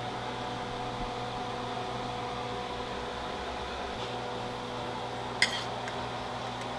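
Steady hum of a kitchen appliance such as a fan or microwave, with a single sharp clink about five seconds in.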